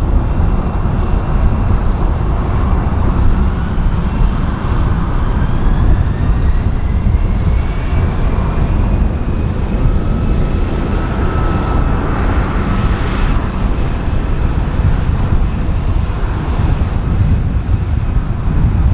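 Airbus A321-211 jet engines running loud over a heavy low rumble. A whine rises over several seconds from a couple of seconds in as the engines spool up for takeoff.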